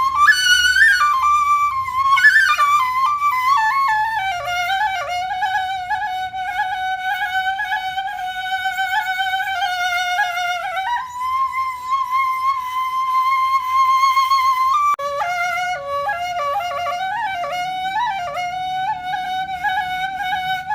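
Background music: a solo flute melody with quick ornamented runs and long held notes over a faint low accompaniment, breaking off and restarting abruptly about fifteen seconds in.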